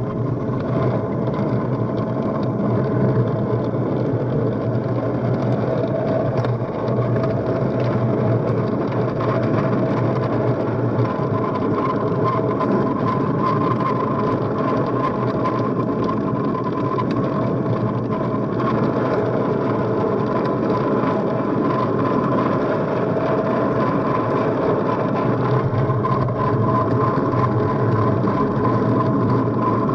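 A homemade rail cart of wooden planks on metal tubes rolls along railway track on ball-bearing wheels, making a steady rumble with a high, even whine.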